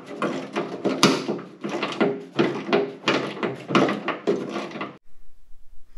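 Rapid clattering, knocking and scraping of metal parts being handled as the mower's drive shaft is worked loose and lifted out. It cuts off abruptly about five seconds in.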